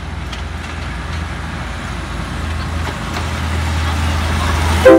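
Diesel railcar train running as it pulls away and passes close by, a steady low engine drone growing louder. A short, loud pitched blast sounds just before the end.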